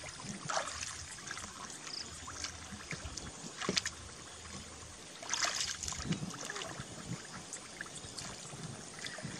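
Hands and legs working through shallow muddy water: irregular sloshing, small splashes and trickles, with a few louder sloshes around the middle.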